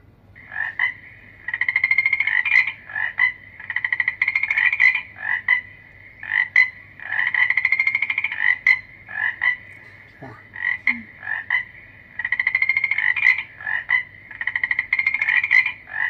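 Recorded frog calls played through the small speaker of a white noise machine lamp: repeated pulsed trills with short croaks between them, starting just after the sound is switched on.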